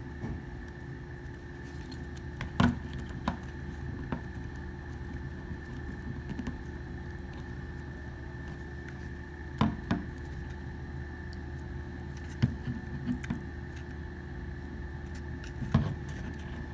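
Scattered sharp clicks and light knocks from handling a Glock 19 pistol frame while grip panels are pressed onto it, over a steady background hum with a thin high whine.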